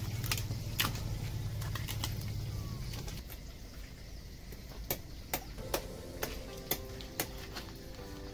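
Heavy chopper or cleaver chopping through a large tuna on a wooden table: a string of sharp knocks at irregular intervals, with a low hum during the first three seconds.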